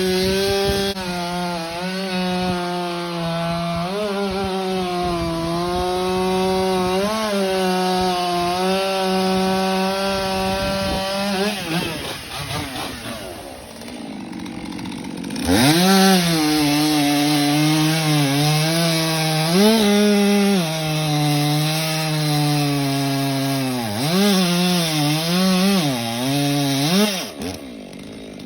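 Stihl MS 400 two-stroke chainsaw cutting through ash wood, the engine pitch sagging and wavering under load. About twelve seconds in it drops back for a few seconds, then revs up again and cuts on with the pitch dipping and rising, dropping off near the end.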